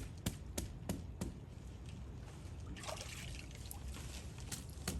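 Water trickling and dripping from a soaked sponge as it wets down the brickwork, with a heavier trickle about three seconds in. A run of sharp ticks, about three a second, sounds throughout.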